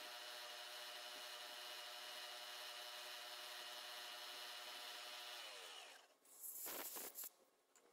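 Small milling machine's spindle running steadily with a 1.5 mm four-flute carbide end mill cutting a shallow pocket, a steady whine over a rasping cut. About five and a half seconds in the spindle is switched off and its whine falls in pitch as it spins down, followed by a short burst of noise.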